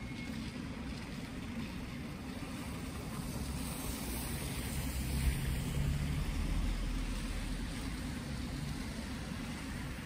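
City street traffic rumble with a vehicle driving past close by, its engine growing louder through the middle and then fading.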